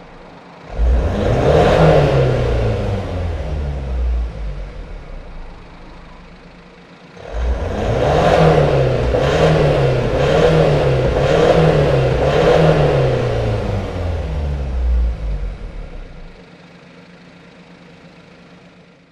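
Mazda CX-5 KF2P's 2.2-litre four-cylinder turbo-diesel, heard through a BLITZ NUR-SPEC VSR stainless exhaust, revved while standing still. There is one rev about a second in that falls back slowly; after a pause comes a run of about five quick blips in a row, each rising and falling. The engine then drops away to a low, quiet level.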